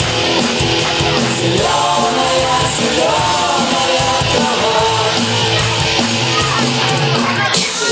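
Loud rock-style music with singing, which changes abruptly near the end.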